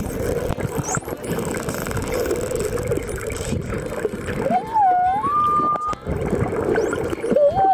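Underwater noise: a steady rushing rumble, with a few short sliding whistle-like tones about halfway through and again near the end.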